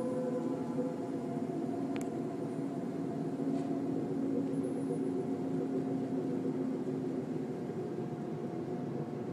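A steady, low droning hum made of several held tones over a noisy background, the kind of unexplained sound circulated as 'strange trumpet sounds in the sky'. There is a single sharp click about two seconds in.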